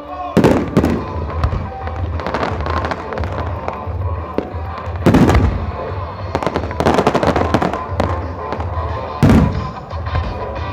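Large aerial fireworks shells bursting in a show, with big booms about half a second, five and nine seconds in and dense crackling between them.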